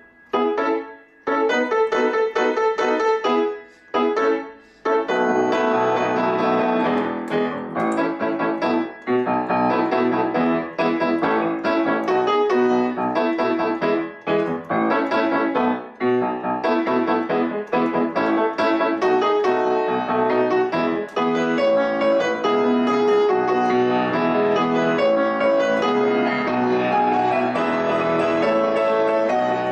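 Background piano music, with short pauses between phrases in the first few seconds.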